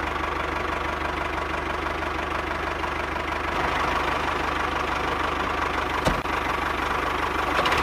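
Small electric motors of a miniature model machine running with a steady buzzing whir, with a faint click about six seconds in.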